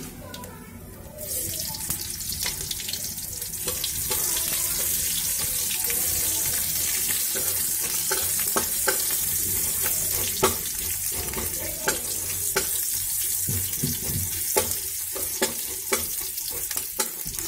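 Sliced onion hitting hot oil in a steel kadai and sizzling, starting suddenly about a second in and frying steadily, with the clicks and scrapes of a spatula stirring it.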